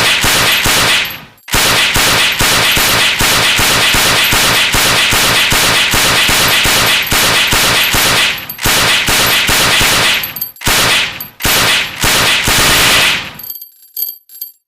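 Sten submachine gun, 9 mm, firing on full automatic: one long burst of about seven seconds and several shorter bursts with brief pauses between them. The firing stops about 13 seconds in, followed by a few faint clicks.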